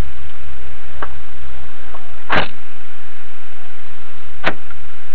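Steady low hum with a few sharp knocks across it: a faint one about a second in, the loudest a little before the middle, and another near the end. The sound is picked up by a security camera's microphone inside a parked car.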